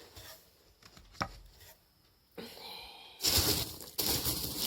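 A single sharp tap about a second in, then loud rustling and crinkling of packaging from about three seconds in as products are handled in the box.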